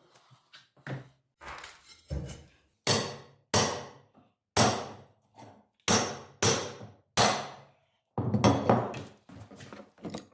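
A wooden wedge being hammered in under a floor joist: about ten sharp, irregularly spaced hammer blows on wood, with a quick flurry of blows near the end. The wedge raises the joist to stop the floor squeaking.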